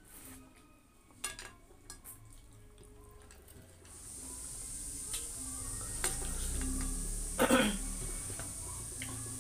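Close-up eating sounds: fingers mixing rice and food on a plate, chewing and mouth clicks. A steady hiss joins about four seconds in, and one short, louder mouth noise comes about three-quarters of the way through.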